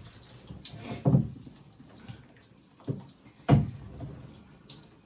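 Water splashing and dripping in a tub as a dog is bathed, with two louder splashes, about a second in and just past halfway.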